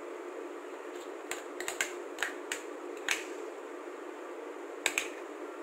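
Sharp clicks and taps from a glass mixing bowl being handled while a chocolate biscuit mixture is scraped out of it by hand onto a plastic sheet. The clicks come close together from about one to three seconds in, then twice more near the end, over a steady low hum.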